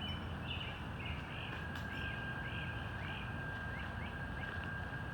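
A bird calling a repeated series of short notes, about two a second, over a steady low outdoor rumble; a faint thin steady whine joins about two seconds in.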